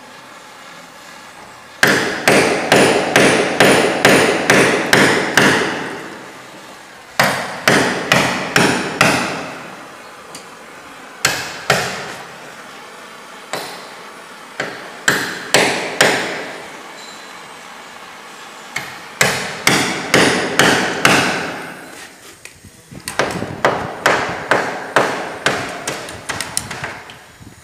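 Hammer blows on metal, ringing, struck about three times a second in several runs of a few seconds each with pauses between.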